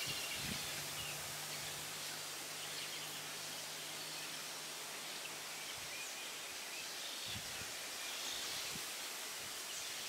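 Outdoor ambience: a steady hiss with faint, short bird calls now and then.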